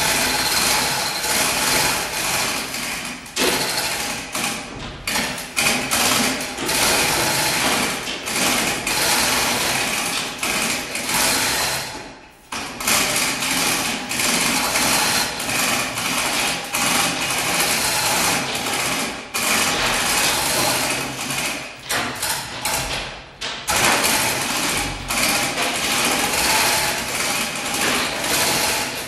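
Manual chain hoists rattling and clicking as their hand chains are pulled hand over hand, lifting a boat hull free of its mould. The clatter is nearly continuous, with a few brief pauses.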